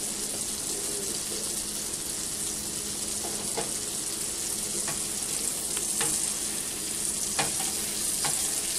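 Butter sizzling steadily as it melts on a hot nonstick griddle, with a few light clicks of a spatula against the pan as it is pushed around from about three seconds in.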